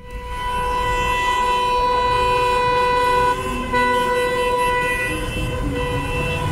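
Car horns held in long, steady blasts over traffic noise, breaking off briefly about three seconds in before the honking starts again with a second horn of a different pitch.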